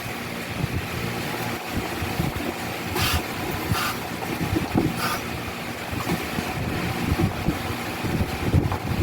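A motor running steadily, likely a small air compressor pumping up a bicycle tyre, with three short hisses of air about three, four and five seconds in.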